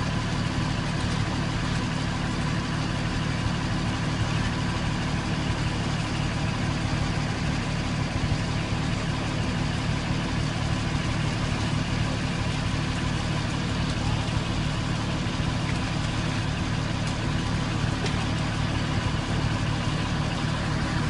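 Concrete mixer truck's diesel engine idling steadily, a constant low hum with a faint steady tone above it.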